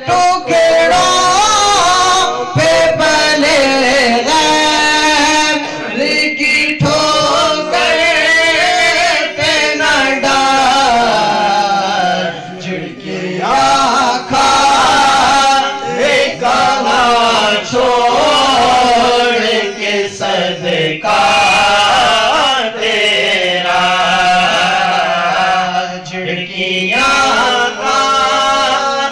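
A young man singing an Urdu naat solo into a microphone, in long, ornamented melodic phrases with short pauses between them.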